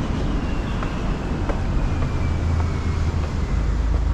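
Steady traffic noise from cars on a main road, with a few faint footsteps on tiled stairs.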